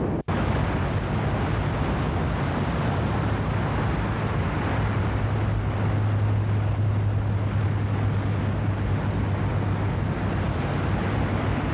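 Surf and wind rushing steadily on the microphone, with a low hum underneath that swells in the middle and fades again. The sound cuts out for an instant just after the start.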